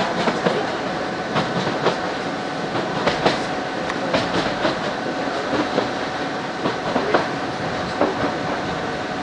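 Moving electric passenger train heard from inside the carriage: a steady running rumble with frequent irregular clicks and knocks of the wheels over rail joints, and a faint steady whine.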